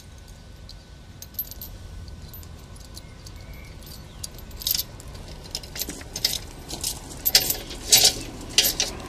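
Chain and padlock of a wheel clamp clinking and jangling as the clamp is locked onto a car wheel: a few separate clicks at first, then quick, repeated metallic clinks near the end.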